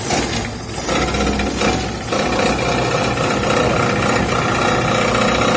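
Car engine running, with a rapid, steady metallic rattle and buzz from underneath: a tinny, sheet-metal vibration that the owner traces to the crankcase protection plate (sump guard), dented from hitting bottom and now touching the exhaust and the engine.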